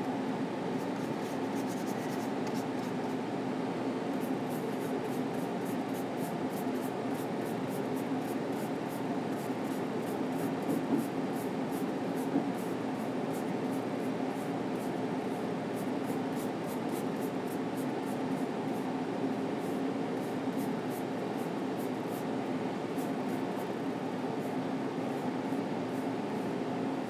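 Steady low room hum, with faint, rapid scratching of an oil-paint brush working on a linen panel.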